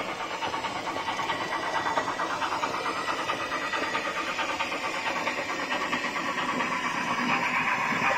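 N gauge model Battle of Britain class steam locomotive running along the track: its small electric motor whirs steadily with a fast rattle of rapid ticks, getting louder near the end as it approaches.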